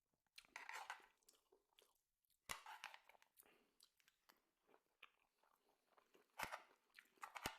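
Close-miked chewing and crunching of food, with irregular crunchy bites and a few louder ones about half a second in, around two and a half seconds, and twice near the end.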